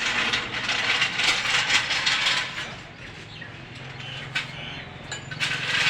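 Motorcycle engine running, with dense metallic rattling over a steady hum. The engine note steps up about four seconds in and again near the end.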